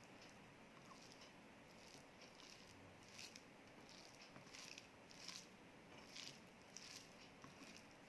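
Faint eating sounds: soft wet mouth clicks and smacks of chewing, coming every half second or so.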